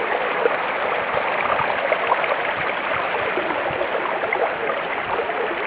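Floodwater flowing in a strong current across a submerged road: a steady rushing of water.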